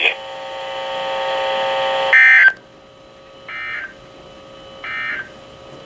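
A steady buzzing tone that grows louder for about two seconds, then three short bursts of Emergency Alert System SAME digital data tones over NOAA Weather Radio, about a second and a half apart, the first the loudest. The bursts are the End of Message code that closes an alert.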